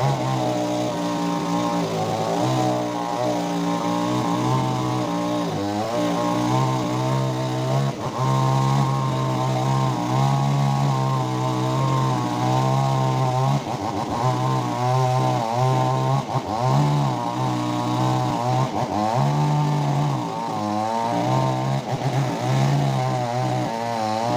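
Stihl chainsaw running while cutting mango wood, its engine speed rising and falling again and again as the chain bites and eases off.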